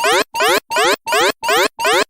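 Countdown timer's electronic alarm buzzer sounding in harsh, even pulses, about three a second, each pulse a quick rising sweep: the time's-up signal at the end of the countdown.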